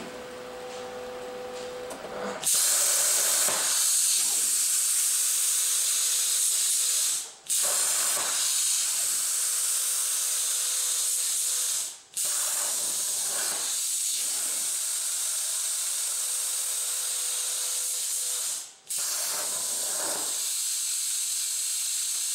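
Hypertherm Powermax65 plasma torch cutting 12-gauge mild steel on a CNC table: a loud, steady hiss of the arc that starts about two seconds in and breaks off briefly three times between cuts.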